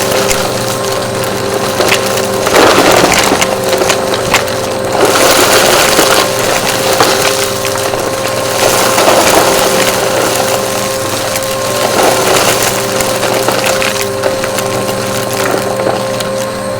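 Upright vacuum cleaner running with a steady motor whine while crunchy debris crackles and rattles up through the nozzle, the crunching swelling with each pass, about every two to three seconds.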